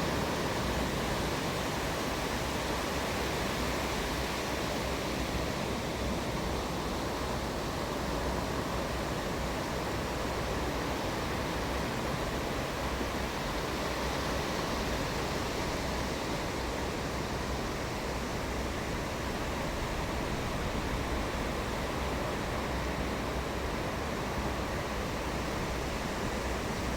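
Ocean surf breaking on the shore, a steady, even rush of waves with no distinct swells.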